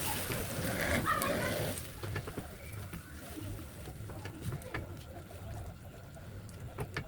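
Pan of lentil stew cooking: a sizzle that drops away about two seconds in, then quieter with faint scattered clicks.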